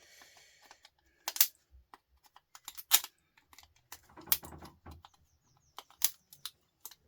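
Irregular sharp clicks and taps of small hand tools and parts being handled while an old circuit board is taken apart, the loudest about a second and a half in, at three seconds and at six seconds, with a brief scrape around four to five seconds.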